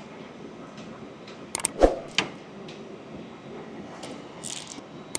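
Parts and tools handled inside an aircraft engine's open cowling: a few sharp clicks and one louder knock about two seconds in, over steady background noise.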